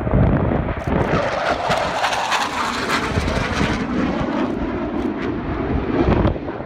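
Panavia Tornado jet with its twin RB199 turbofans flying past, a loud jet roar whose pitch falls from about two seconds in as it goes by.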